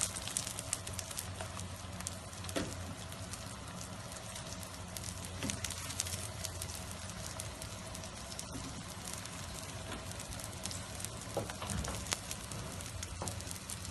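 Feteer pastry frying in ghee on a hot metal tray: a steady sizzle with many small crackles and pops.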